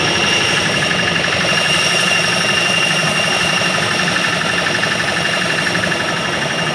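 Jet aircraft turbine noise on an airport apron: a loud, steady rush with a high, even whine held over it.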